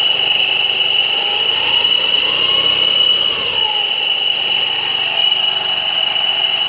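Kawasaki Curve motorcycle engine running with a loud, steady high-pitched whine over it and a lower tone that slowly rises and falls. This is the noise from the transmission side (clutch, pulley and belt) that is being traced.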